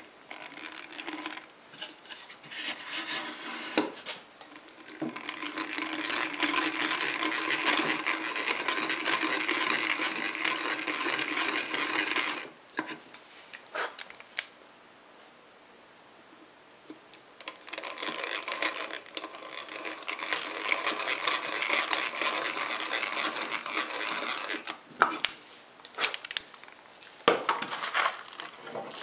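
Hand-cranked egg beater drill boring pilot holes for nails into the birdhouse's wooden roof board: the bit rubbing and cutting through the wood in two long runs of about seven seconds each, with shorter bursts before them. A few sharp knocks come near the end.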